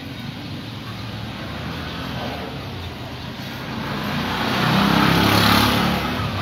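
A motor vehicle's engine hum, steady at first, then swelling as a vehicle passes close about five seconds in, and easing off again.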